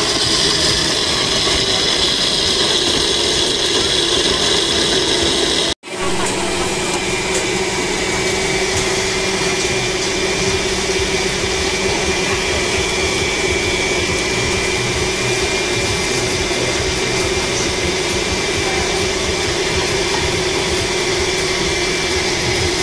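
Electric countertop blender running at speed, churning a coconut smoothie. It cuts off abruptly about six seconds in, after which a steady motor-like hum continues.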